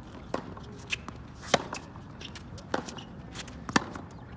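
Tennis balls struck by rackets and bouncing on a hard court during a crosscourt forehand rally: about five sharp pops. Two of them, about a second and a half and nearly four seconds in, are much louder than the rest.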